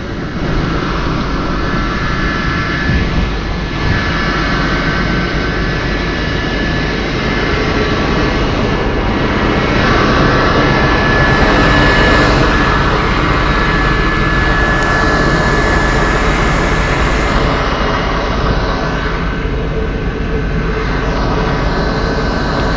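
An engine running steadily, with a steady high whine over a broad rumble, swelling and easing in loudness a few times.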